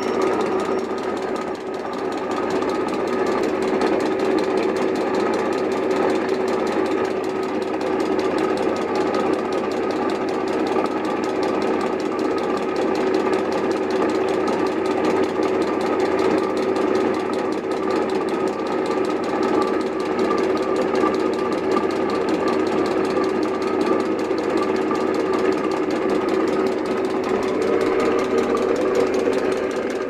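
Hendey 14x6 metal lathe running steadily under a boring cut, a boring bar cutting inside the spinning metal workpiece. The sound is a constant pitched tone from the lathe's drive with a wavering higher tone above it.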